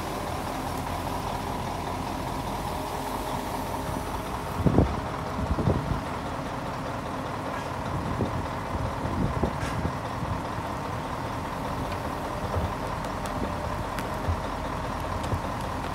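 Volvo wheeled excavator's diesel engine running steadily, with a hydraulic whine as the boom and bucket work. A few dull knocks and scrapes come from the bucket levelling soil; the loudest is about five seconds in.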